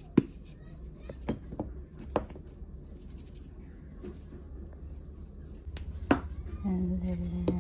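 Scattered sharp clicks and taps from handling a plastic seasoning shaker and utensils over a bowl of beaten eggs, over a low steady hum; a steady buzzing tone comes in near the end.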